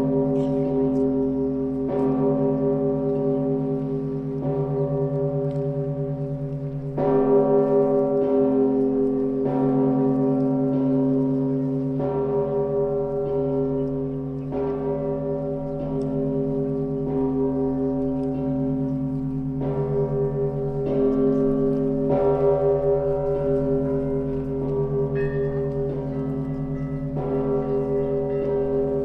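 Russian Orthodox festive bell ringing (zvon) on the Danilov Monastery bells. Several bells are struck in a repeating pattern every second or two, and their tones overlap and ring on. A louder stroke comes about seven seconds in.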